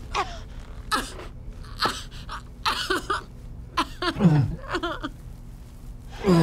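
Gasps, whimpers and strained cries of a struggle: short vocal bursts, many falling in pitch, about one a second, with a deeper grunt a little past the middle.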